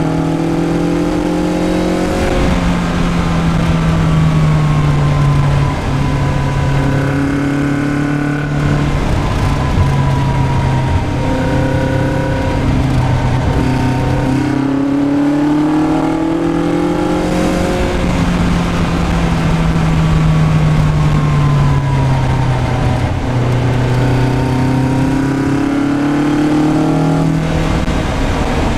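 Caterham Superlight 106's 1.6-litre K-series four-cylinder engine, on individual throttle bodies and a custom 4-2-1 exhaust, heard on board while driving. Its note climbs and falls again and again as the car accelerates and eases off.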